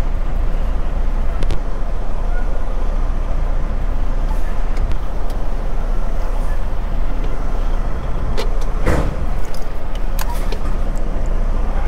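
Semi-truck diesel engine running at low speed, heard inside the cab while the tractor backs slowly. A few sharp knocks come near the end, the loudest about nine seconds in.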